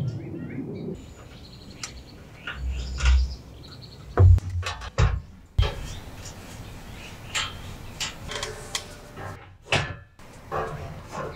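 Folding steel side panels of a GoossTepee Cielo camping burner table being swung up and set in place: a string of metal clanks, knocks and clicks, with a few duller thumps.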